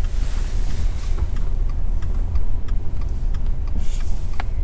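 Steady low rumble of a car engine heard from inside the cabin, with the turn-signal indicator ticking evenly about twice a second. Passing traffic swishes by near the start and again near the end.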